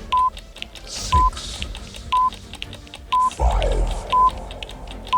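Countdown timer sound effect: a short beep about once a second over a fast ticking clock. A voice calls out a number about a second in and again a little past three seconds.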